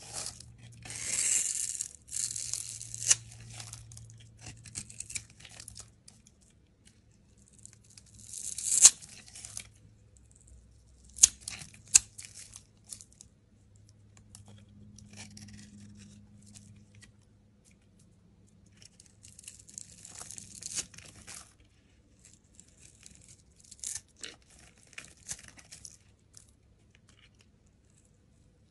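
A snap-off utility knife blade scraping and shaving a bar of soap, in a series of short, scratchy, crunching strokes with quiet pauses between them. There are a couple of sharp clicks about eleven and twelve seconds in.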